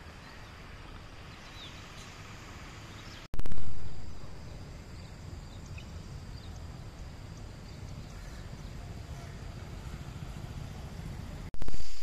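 Steady outdoor background noise, with a sudden loud burst about three seconds in that fades away over about a second.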